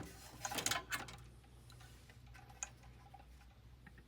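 Light clicks and scraping of the removed furnace draft inducer fan being handled, mostly in the first second, then a single faint tick about two and a half seconds in.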